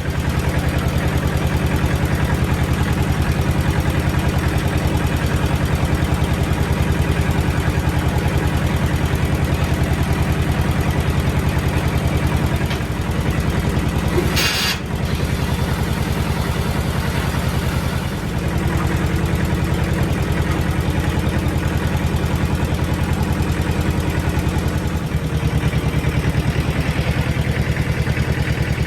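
An engine or motor running steadily with a fast, even pulse, briefly dipping a few times, with a short hiss about fourteen seconds in.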